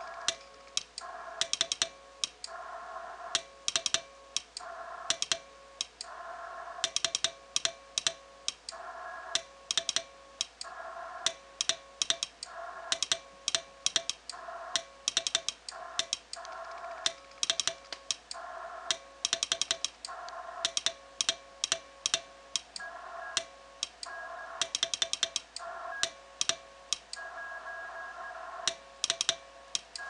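Brass straight key clacking as it is hand-keyed in Morse code, with the Yaesu FT-891 transceiver's CW sidetone beeping in step with each dot and dash. The clicks come in short groups. It is slow beginner-speed sending of the end of an over, "BTU KA2KGP DE KB1THM K", handing the contact back to the other station.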